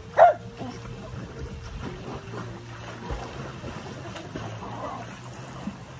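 A small dog gives one short, loud bark about a quarter second in. After it, pool water splashes and laps as swimmers move through it, with wind on the microphone.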